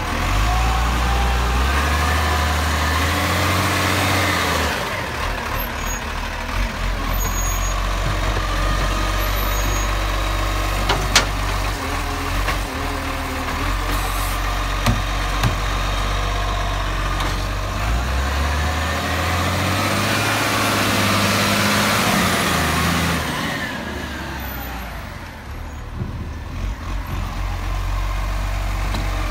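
Side-loading garbage truck's diesel engine running under load while its lift arm raises and tips a wheelie bin. The engine note rises and falls twice, a sharp knock comes about eleven seconds in, and the engine settles to a steady idle near the end.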